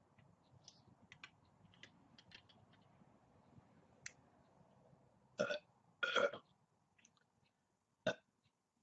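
A young woman burping: two loud short burps close together a little past halfway, then a brief one near the end, after some faint clicking sounds.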